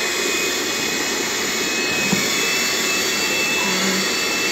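Bissell PowerGlide cordless stick vacuum running steadily on low power as it is pushed along the edge of a hard floor, a steady rush of suction with a thin high whine over it.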